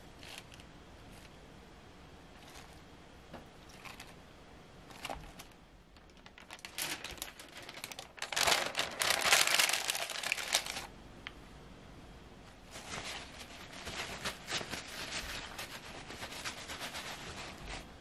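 A few light taps as cherry tomatoes are set into a plastic food container, then loud crinkling of a printed food-wrapping paper sheet being folded into the container, loudest about eight to eleven seconds in, followed by lighter paper rustling.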